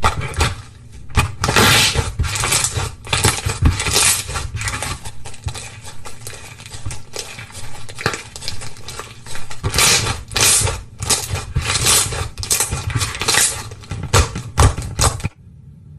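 Hands squishing, poking and pressing slime: a dense run of short crackly clicks and squelches that stops abruptly near the end.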